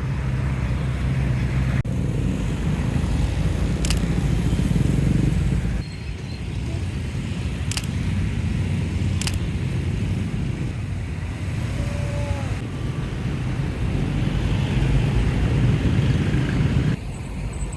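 Road traffic: cars and motorbikes running by with a steady low engine rumble, a few sharp clicks, and sudden changes where the recording is cut between shots.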